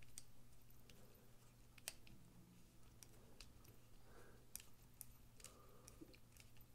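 Faint, scattered small clicks of a precision screwdriver turning and seating the pivot screw of a Rike 1902 folding knife as it is tightened.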